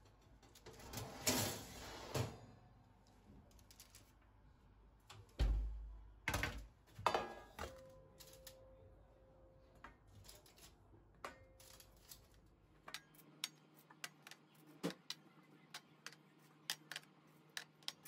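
Metal baking tray sliding out of an oven and set down on the gas hob's iron grates with a few knocks, followed by a run of short light taps, about two a second, as baked şekerpare cookies are set one by one into an enamel dish.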